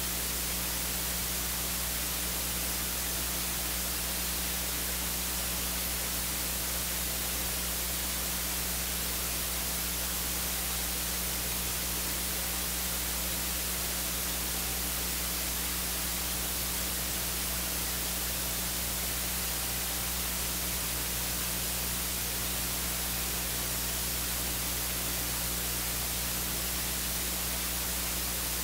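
Steady electronic hiss with a low hum underneath, unchanging throughout: noise of the audio feed or recording chain, with no speech or music on it.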